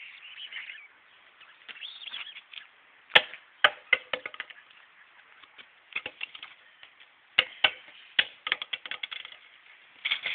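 Scuffling on concrete pavement as a three-month-old Akita puppy paws and skitters around a person's shoes: irregular sharp clicks and scrapes, bunched in two clusters about three seconds and seven and a half seconds in, and again near the end.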